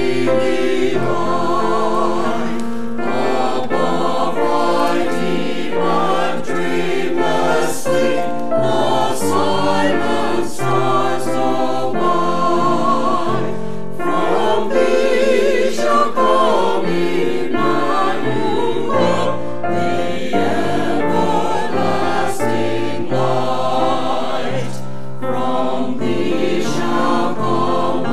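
Mixed church choir of men and women singing a sacred piece together, with notes held and slightly wavering in pitch.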